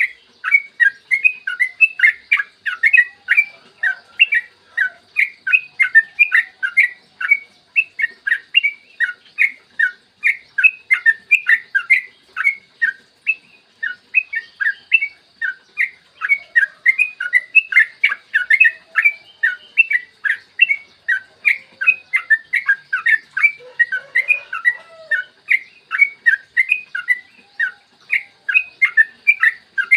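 Yellow-vented bulbul (trucukan) singing a long, fast run of clear chirping notes, several a second, with hardly a pause.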